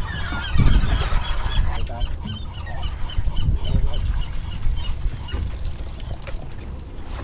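Gulls calling: a long run of short, high, repeated calls, about three a second, over a steady low rumble of wind.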